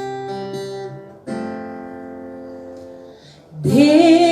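Acoustic guitar strumming two chords, each left to ring and fade. Near the end a voice comes in singing a long held note over it.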